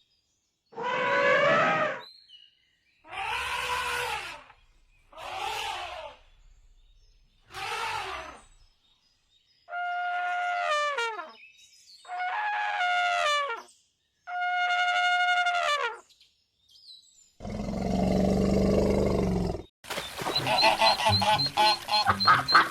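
A series of different animal calls played one after another, about eight, each a second or two long with short silences between. Most are pitched calls that fall or step in pitch; a low, rough call comes about three-quarters of the way in, and near the end a rapid pulsing call begins.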